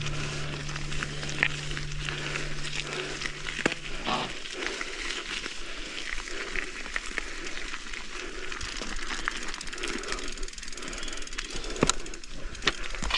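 Mountain bike riding down a dirt trail: tyre noise on the ground with rattles and sharp clicks from the bike. A low steady hum stops about four seconds in.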